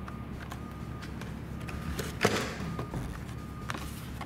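Blister-carded die-cast toy cars being handled and drawn from a cardboard case: plastic and card crinkling, with a few faint clicks and one louder crinkle about two seconds in, over a low steady hum.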